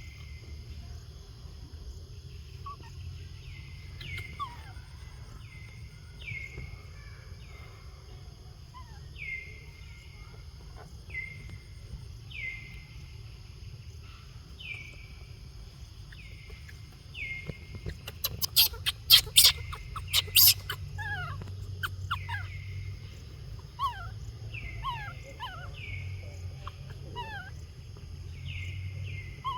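Baby monkey giving short, falling whimper calls about once a second, with a burst of loud shrill squeals about two-thirds of the way through.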